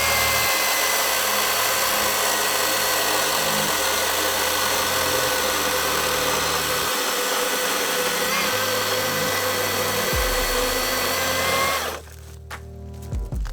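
Milwaukee M18 cordless electric chainsaw running flat out and cutting through a thicker log: a steady high whine that sags slightly in pitch under load, stopping suddenly about twelve seconds in.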